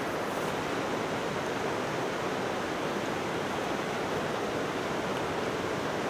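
Steady rushing of a mountain river's rapids, an even wash of water noise with no breaks.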